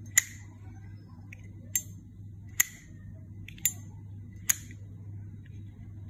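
Chrome Zippo Slim lighter's hinged lid flipped open and snapped shut by hand, five sharp metallic clicks at irregular intervals of about a second. The cam is strong, so the lid opens and closes crisply.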